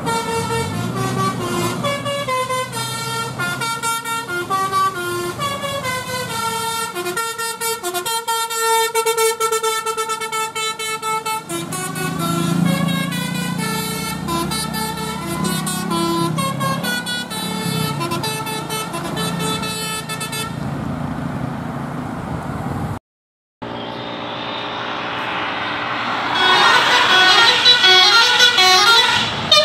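Tour bus's Basuri 'telolet' multi-tone air horn playing a melody, its notes stepping up and down over the hum of the bus. About 23 seconds in, a brief dropout cuts to another bus's telolet horn tune, which gets louder near the end.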